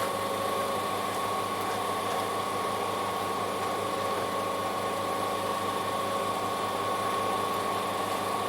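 Generator running steadily: an even drone with a constant high-pitched whine over it.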